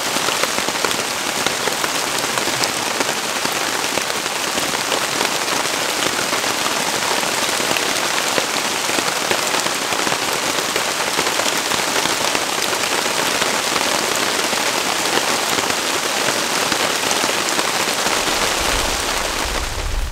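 Steady rain, a dense even hiss of countless drops, with a low rumble coming in near the end.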